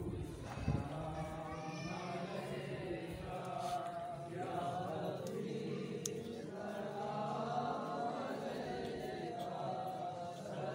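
A group of men chanting together, several voices overlapping in drawn-out sung lines: a devotional recitation.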